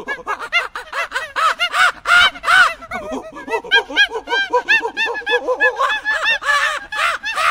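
Gibbon calling: a rapid, unbroken run of short hoots that each rise and fall in pitch, several a second.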